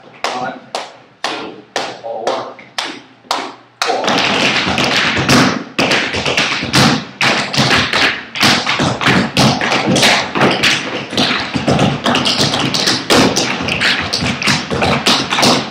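Tap shoes striking a wooden floor, several dancers at once: evenly spaced single taps about three a second, then from about four seconds in a dense, continuous flurry of taps.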